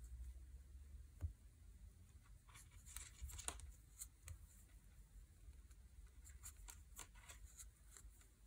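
Faint, irregular clicks and scrapes of a wooden circular knitting needle and yarn as knit stitches are worked one after another.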